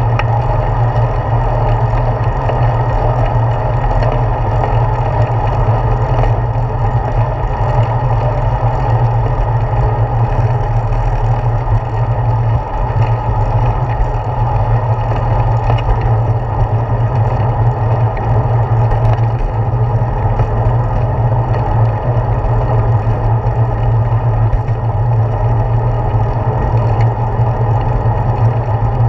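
Steady, loud rumble of wind and road vibration picked up by a handlebar-mounted GoPro Hero 4 on a moving bicycle, with most of the sound low and no clear events standing out.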